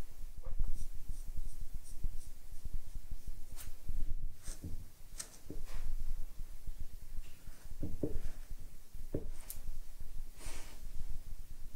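Short, irregular scratches of a wire-tipped scoring tool scraping the base of a clay cup, roughening it so the legs will join. Light taps and handling of the clay on a wooden tabletop come between the scratches.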